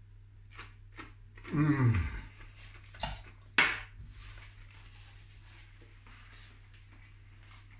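A short falling 'mmm' hum while eating, then two sharp clinks of a plate and cutlery about three seconds in, the second the louder, followed by faint small handling ticks.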